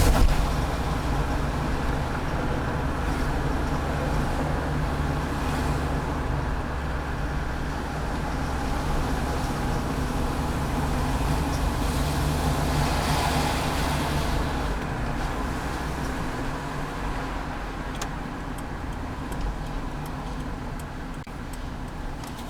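2002 Subaru Outback driving, with a steady engine and road-noise drone that eases slightly in the last several seconds. Faint short ticks come in near the end.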